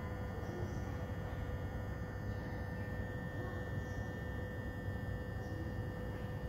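Steady hum with a low rumble underneath and a faint, even high tone, unchanging throughout.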